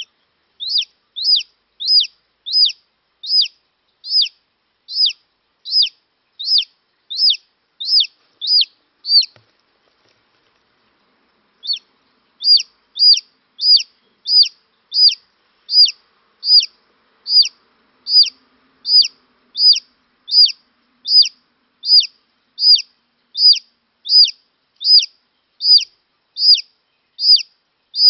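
Newly hatched chicken chick peeping: loud, regular peeps, each a short falling whistle, about one and a half a second, with a pause of a couple of seconds partway through.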